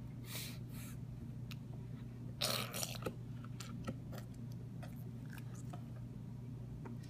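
A baby sucking and smacking on an ice pop: wet mouth smacks and small clicks, with a louder rush of noise about two and a half seconds in, over a steady low hum.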